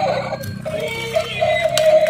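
Background music with a synthetic, voice-like lead melody holding and gliding between notes.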